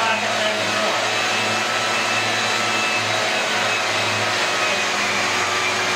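Ridgid orbital sander with a mesh sanding screen running against a drywall joint, with a small vacuum pulling dust through the pad: a steady whirring hum with faint even tones.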